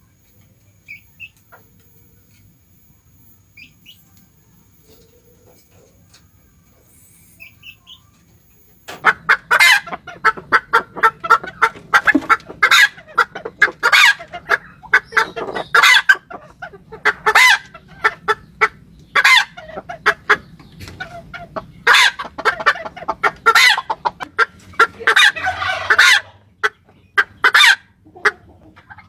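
Red jungle fowl calling: a few faint chirps, then about nine seconds in, loud rapid clucking starts and keeps on in quick repeated calls.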